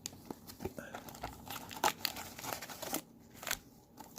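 Trading card packs and their cardboard box being handled, with irregular crinkling, rustling and small taps.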